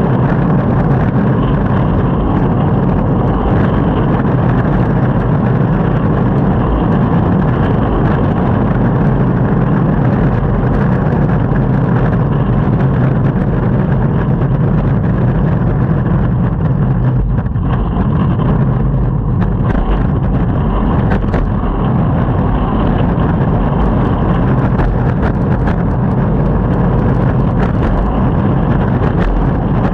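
Longboard wheels rolling over city pavement: a loud, steady rumble, with a few light ticks later on.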